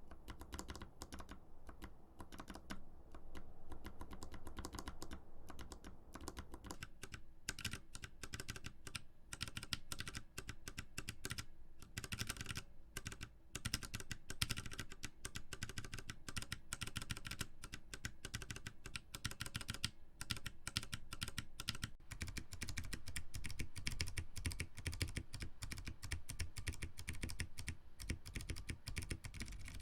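Custom-built mechanical keyboard being typed on quickly, a steady, dense run of key clacks.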